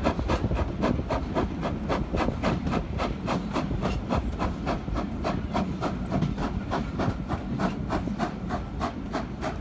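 Steam locomotive working hard at the head of the train, its exhaust beating in a fast, even rhythm of about five chuffs a second, over the steady rumble of the carriage wheels on the rails, heard from a carriage window.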